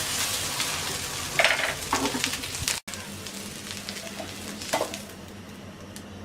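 Food sizzling in hot oil in a pan, with a spatula stirring and scraping against it. The sizzle cuts off suddenly about three seconds in, leaving a faint hum and one more scrape.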